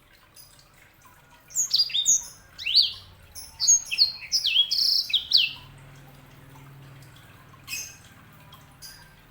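Yellow-fronted canary (sanger) singing: a rapid run of sharp chirps and sweeping whistles for about four seconds, starting about a second and a half in. A few single chirps follow near the end.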